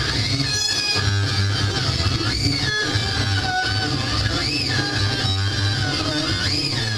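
Harsh noise music from amplified glass: a dense, distorted wall of sound over a steady low hum, with high squealing tones that arch up and back down roughly every two seconds.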